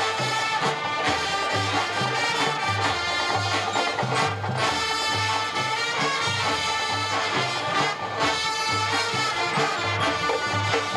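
High school marching band playing: brass sustaining chords over a steady low beat from the bass drums and low brass.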